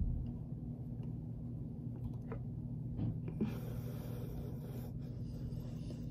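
Steady low hum of room tone, with a soft scratchy rustle lasting about a second and a half past the middle and a few faint ticks.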